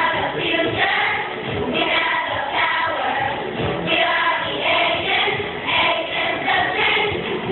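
Children's choir singing together over backing music that has a low beat recurring about once a second.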